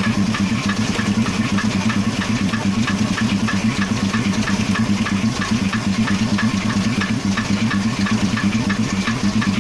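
Car engine idling with a fast, regular knock ticking over the running: the engine knock whose source is being hunted down.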